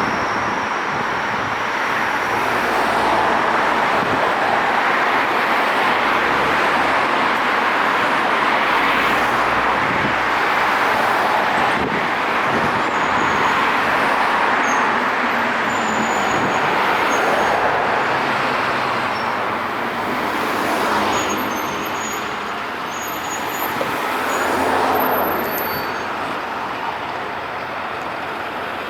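Steady road traffic: cars passing in a continuous rush of tyre and engine noise that swells now and then. Faint short high chirps come through in the second half.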